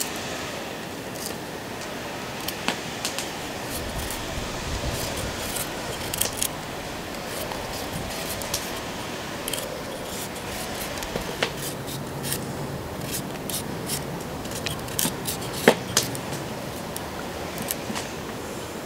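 Small knife paring the skin off a raw carrot in short, irregular scraping strokes.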